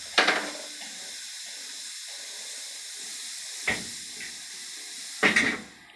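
Compressed air hissing steadily out of a pneumatic motorcycle lift ramp's loosened release screw as the ramp lowers; the hiss stops near the end as the ramp reaches the bottom.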